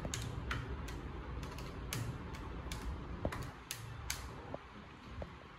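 Keys of a desk calculator being pressed: a run of sharp, irregular clicks, a few a second, stopping about four seconds in apart from a few fainter taps.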